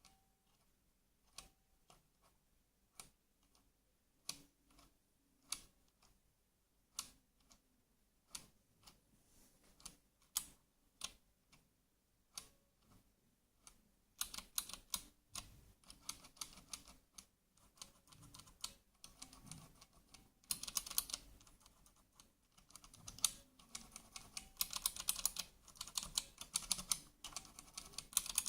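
Keys of a Redragon Manyu mechanical keyboard with Outemu switches being pressed, first as separate single keystrokes, then as fast, louder continuous typing from about halfway through.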